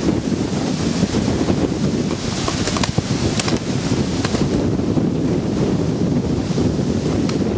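Wind buffeting the camera microphone, a steady low rumble. A few faint sharp clicks come through it, a cluster around the middle and one near the end.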